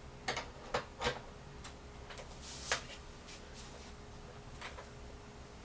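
Several light clicks and knocks from handling the parts of a ring light stand while fitting and adjusting it, most of them in the first three seconds, with a faint steady hum underneath.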